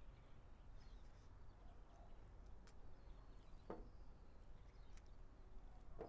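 Near silence: faint outdoor background with a few soft clicks and a brief crackle, and faint short high chirps.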